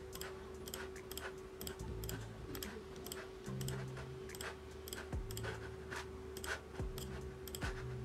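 Cheap Zebronics wired mouse's button clicking at an uneven pace, about two clicks a second.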